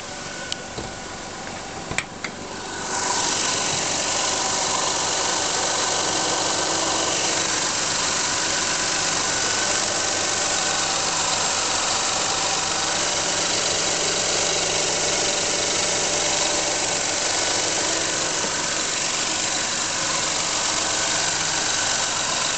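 2000 Lexus ES300's 3.0-litre V6 running, with a loud, steady hissing, grinding noise from underneath the engine that jumps up about three seconds in after a few clicks. The noise is the sign of something wrong under the engine.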